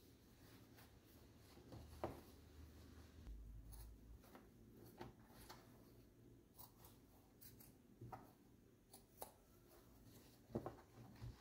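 Faint snips of scissors cutting through leather from an old welding glove, heard as scattered short clicks at irregular intervals, with the soft rustle of the leather being handled.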